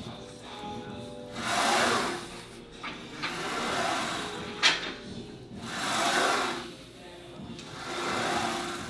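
A man's forceful exhalations, one with each rep of a leg-machine set, about every two seconds, over faint background music. A single sharp clank about halfway through.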